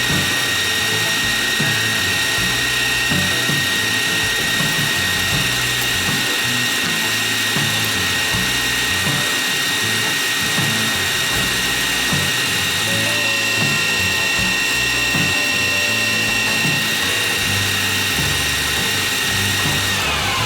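Stanko 1K62 metal-turning lathe running at a steady spindle speed, its gearbox giving a high, steady whine; it starts to wind down at the very end.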